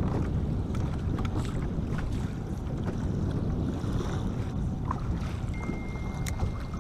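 Steady wind buffeting the microphone over choppy water against a small boat, with a few light ticks and a faint thin high tone coming in about five and a half seconds in.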